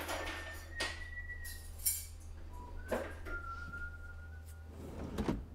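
Ceramic plates and dishes clinking as they are handled, about five sharp clinks spread over several seconds, some leaving a short ringing tone.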